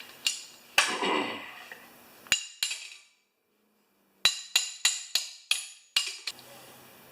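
Small hammer striking steel parts held in a bench vise, each blow ringing briefly: four blows spread over the first few seconds, then a quick run of about eight lighter taps, roughly three or four a second.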